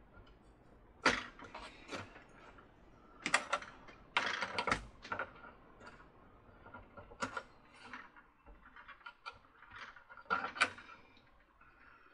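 Hands working plastic parts of a Mr. Christmas carousel's rotor and circuit-board assembly: irregular clicks, taps and scrapes, loudest about a second in and again around three to five seconds in.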